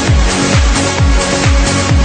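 Trance music: a steady four-on-the-floor kick drum, about two beats a second, under held synth chords and bright high-end percussion.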